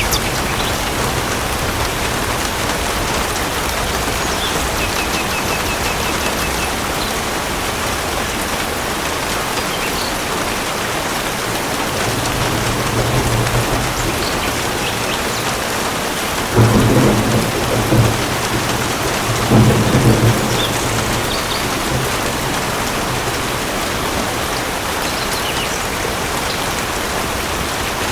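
Steady rain pouring down in a thunderstorm, with thunder rumbling low about halfway through, then two louder rolls of thunder a few seconds apart.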